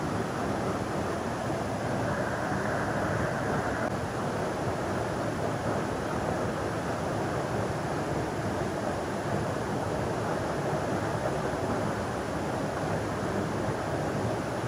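Steady rushing of flowing river water, an unbroken noise with no distinct events, a little brighter for a couple of seconds about two seconds in.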